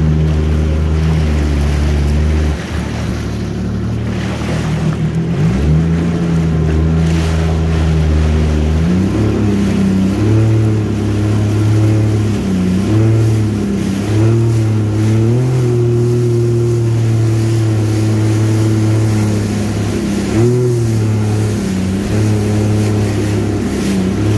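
Personal watercraft (jet ski) engine running under way, with water rushing past the hull. Its pitch drops a couple of seconds in, climbs again, and rises and falls several more times as the throttle is eased and opened, then falls away at the very end.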